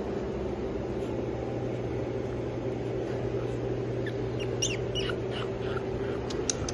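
A steady low hum, with a few short high-pitched squeaks starting about four and a half seconds in.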